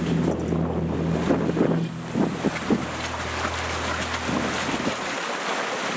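Wind buffeting the microphone and sea water washing and surging around the balsa logs of a raft in rough weather, with a few knocks about two seconds in.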